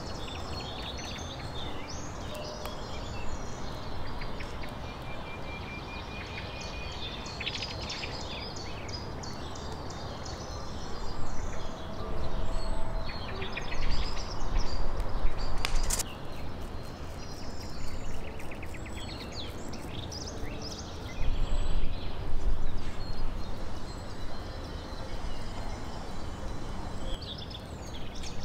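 Outdoor ambience of small birds calling, many short high chirps throughout, with louder stretches of low rumble from about 11 to 16 seconds in and again around 21 seconds.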